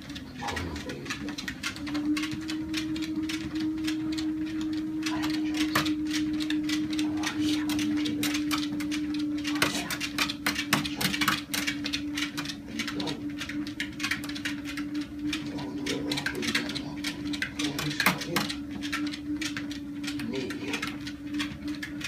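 Sole treadmill motor running with a steady whine, under the quick irregular patter of a corgi's paws and nails on the moving belt.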